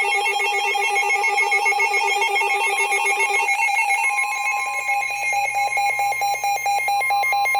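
Electronic emergency alert tones: a fast, warbling multi-tone trill. Its lowest pitch drops out about three and a half seconds in, and a steady higher tone joins about half a second later.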